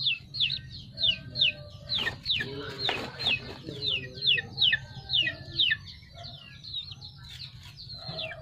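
Chicks peeping: a steady run of short, high peeps, each falling in pitch, about three a second, with low clucking from a hen mixed in.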